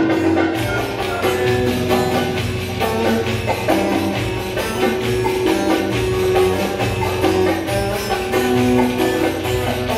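Ankara oyun havası folk dance music: a melody line of held notes over a steady percussion beat with jingling, tambourine-like hits.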